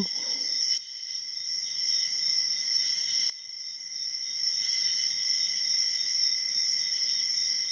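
Steady high chirring of crickets in the background, with a couple of faint sharp clicks about a second in and a little after three seconds.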